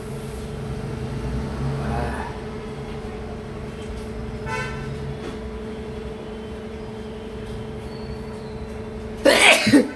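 A man sneezes once, loudly, about nine seconds in, against a steady low electrical hum; a brief high-pitched toot sounds about halfway through.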